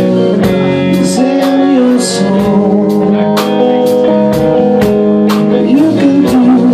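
Live rock band playing a slow song: electric guitar and a steady drum beat, with a male voice singing a held, gliding line about a second in and again near the end.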